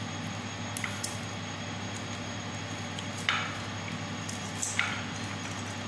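A few small clicks and taps of a pump motor's run capacitor and its wire connectors being handled and fitted onto the motor's terminals, over a steady low hum.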